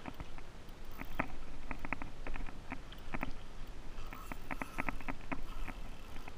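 Small waves slapping and tapping against a plastic fishing kayak's hull in quick, irregular clusters of clicks.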